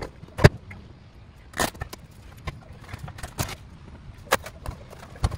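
Several sharp knocks and clunks, the loudest about half a second in, as a space-saver spare wheel is freed from its holder and lifted out of a Porsche Macan's cargo well.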